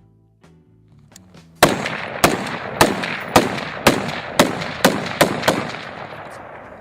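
About nine rapid semi-automatic shots from an AR-pattern rifle, roughly two a second, each with a long echoing tail that dies away after the last shot. Background music plays before the shooting starts, about a second and a half in.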